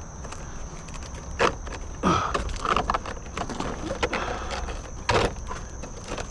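Handling noises as a plastic pipe boot is fitted down over a roof vent pipe: scraping and rustling, with two sharp knocks, one about a second and a half in and one near the end.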